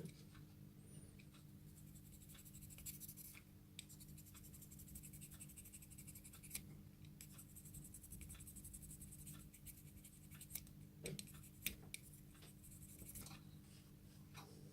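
Faint scratching and small clicks of hand work on small parts, over a steady low hum.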